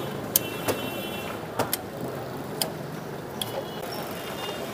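Spring-loaded poultry shears snipping through a whole grilled chicken on a steel tray, giving several sharp metallic clicks at uneven intervals, over a steady hum of street traffic.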